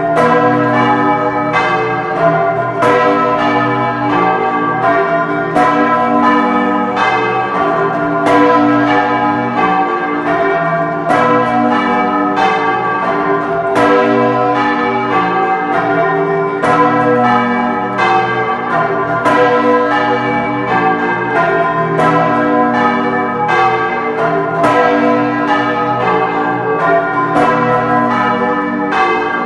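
Several large church bells of Bologna's San Pietro Cathedral being rung by rope together, heard up close inside the belfry: a loud, continuous run of overlapping strokes, more than one a second, each left ringing on.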